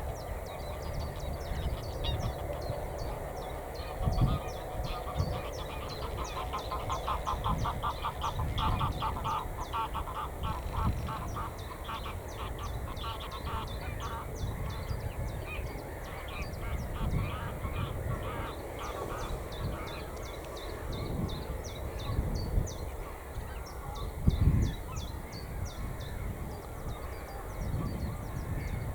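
A flock of water birds calling, a constant chatter of short honking calls. Under it runs a low rumble, with a couple of louder thumps about four seconds in and again near the end.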